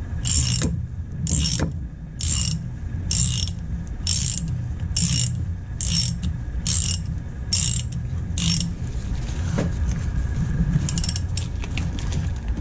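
A hand socket ratchet clicks in a steady rhythm of about one and a half strokes a second as bolts are run down on a power steering pump bracket, over a steady low rumble. The strokes stop about two-thirds of the way in, and a few quicker, lighter clicks follow near the end.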